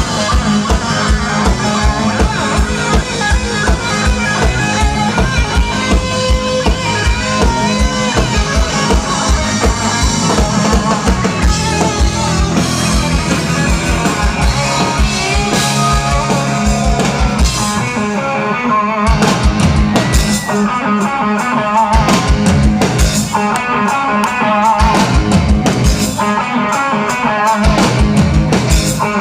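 Live rock band playing loud, with drum kit and electric guitar; the steady bass-drum beat drops away about two-thirds of the way through while guitar and cymbals carry on.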